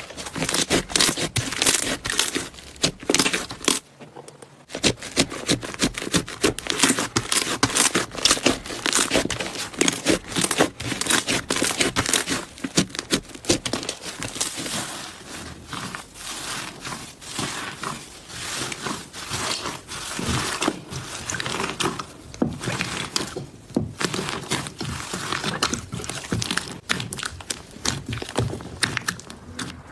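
Slime being squeezed and worked by hand, giving a dense stream of fast clicks and pops, with a short pause about four seconds in.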